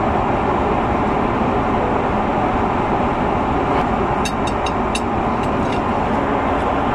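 Steady airliner cabin noise in flight, the even roar of engines and airflow. About four to five seconds in, a few light clicks of a metal fork against the meal tray and dishes.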